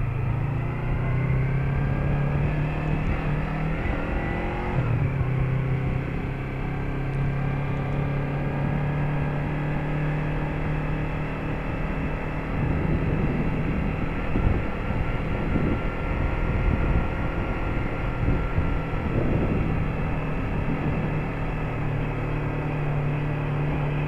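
Yamaha MT-03 motorcycle engine running at low town speed. Its pitch rises as it accelerates, then drops at a gear change about five seconds in, and it runs steadily after that. A low wind rumble on the microphone runs underneath.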